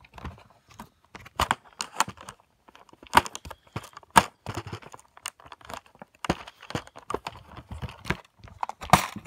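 Handling noise from a phone held one-handed, with fingers moving right over it and the Lego box: irregular clicks, knocks and rustles, the loudest click near the end.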